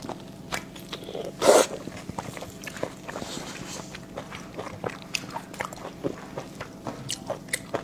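Close-miked mukbang eating sounds: a person chewing and biting food, with many short wet clicks and smacks and one louder burst about a second and a half in.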